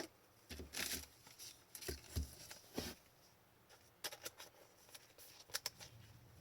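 Trading cards being handled: short papery swishes and light clicks of cards sliding and flipping over one another, in scattered strokes with a pause of about a second in the middle.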